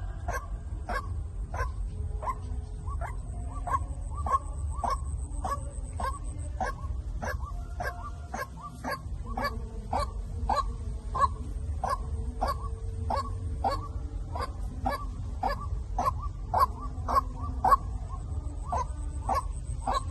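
White-breasted waterhen calling a steady run of short repeated notes, about three a second, the loud rhythmic call used as a lure to draw other waterhens. A thin, high, steady whine runs under the first third and returns at the very end.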